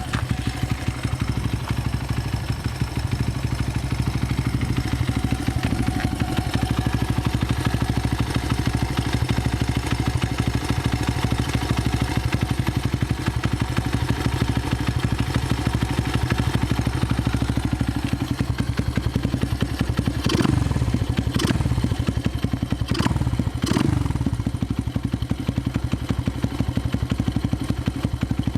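Honda Ape 100's single-cylinder four-stroke engine running steadily at idle through a Yoshimura silencer. About two-thirds of the way in, the throttle is blipped four times in quick succession, and the revs fall back to idle after each blip.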